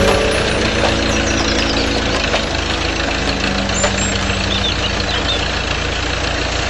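Small motor running steadily as a miniature toy tractor drives a belt-driven water pump, with water gushing from the pump's two outlet pipes.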